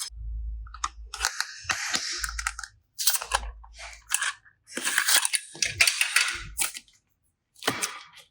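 Slime being handled and squished by hand: irregular bursts of crackling and sticky clicks, broken by short pauses.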